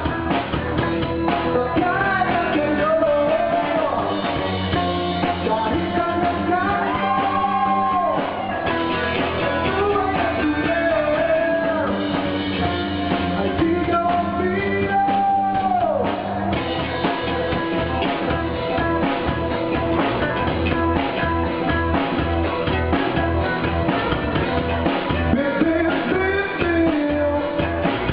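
Upbeat rock song with a lead singer over a drum kit, the drums keeping a steady beat that comes through more strongly about halfway through.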